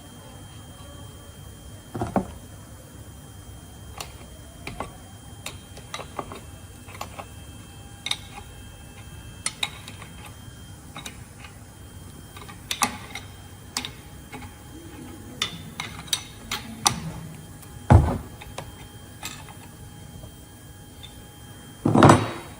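Metal brake parts and tools being handled on a workbench while the brake chamber is worked off the air disc brake caliper: scattered clicks and clinks, a heavy thud about 18 seconds in, and a louder clatter of knocks near the end.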